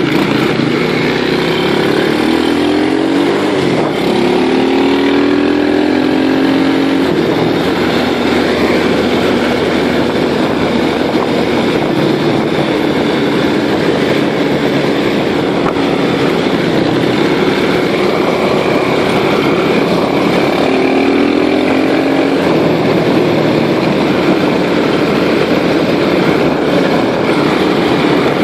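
Small motorcycle-type engine running while riding, rising in pitch as it accelerates in the first few seconds and again around twenty seconds in, with a steady rushing noise throughout.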